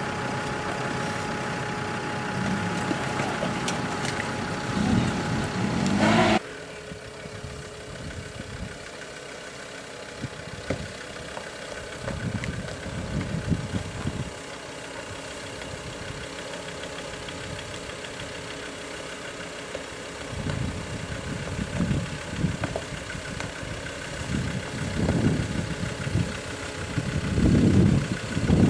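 Off-road SUV engines working at low speed over rocks. First comes a steady engine sound that cuts off suddenly about six seconds in. Then a Land Rover Discovery's engine is heard in uneven low surges that grow louder near the end as it climbs.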